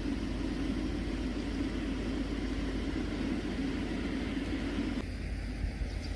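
Heavy rain pouring down in a steady hiss, with a low rumbling layer underneath that drops away about five seconds in.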